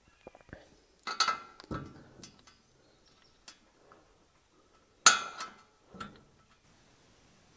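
Light metallic clinks as the outer wheel bearing and its hardware are fitted by hand into a W123 front hub on the spindle. There are a handful of separate clinks, and the loudest comes about five seconds in.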